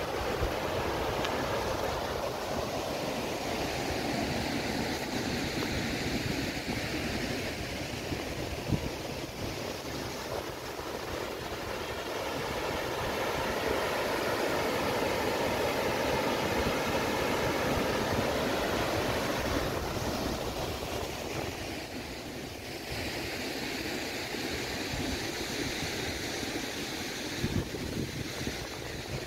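Water spilling over the gates of a river weir on the Meuse: a steady rushing noise that eases a little about two-thirds of the way through.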